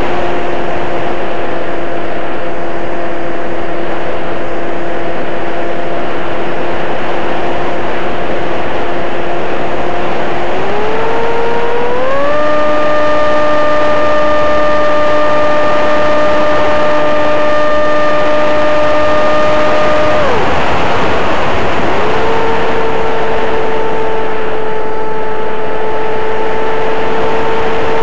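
Electric motor and propeller of an RC flying wing, heard from a camera on the airframe over heavy wind rush: a steady whine that rises in pitch about eleven seconds in as the throttle is opened. It holds there, cuts out about twenty seconds in, and comes back a couple of seconds later at a lower pitch.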